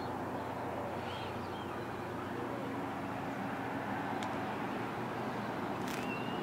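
Steady low rumble of vehicles, with a few short bird chirps about a second in and again near the end.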